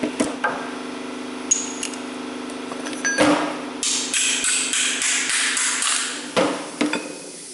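Steel cups and adapters of a hub bearing press tool clinking and knocking together as they are handled and taken apart, with a stretch of rapid rasping in the middle as pieces are scraped and spun against each other. A steady machine hum runs underneath and fades near the end.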